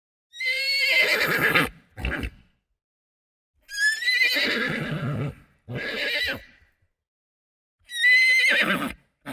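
Horse whinnying three times, each a loud, quavering call lasting about a second, with a short lower sound after each of the first two.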